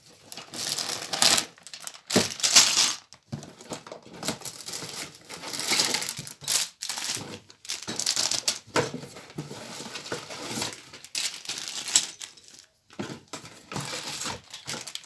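Plastic parts bags crinkling and rustling as a cardboard toy box is opened and emptied, with scattered sharp clicks from the box and the bagged plastic pieces being handled and set down.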